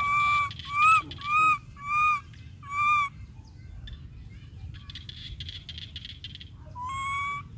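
Monkey giving a series of short, clear coo calls: five in quick succession about half a second apart, then one more, fainter, a few seconds later.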